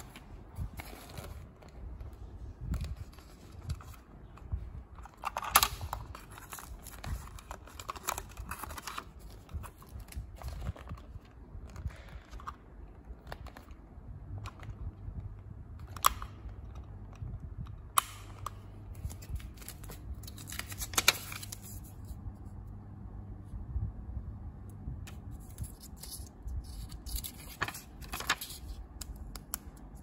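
Plastic handling noise: rustling and several sharp clicks as the battery compartment cover on an inflatable pool's built-in pump is opened and handled.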